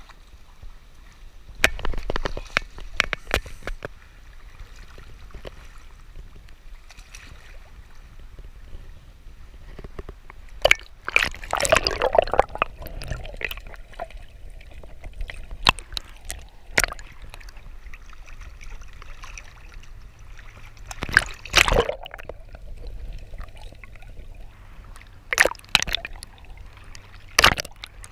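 Seawater sloshing and splashing against a camera held at the surface, dipping under and coming back up. Several sharp splashes come through, with quieter sloshing and gurgling between them.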